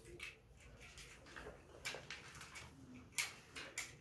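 Plastic building-kit pieces clicking as they are handled and pressed together, with a few sharp snaps about two seconds in and twice near the end.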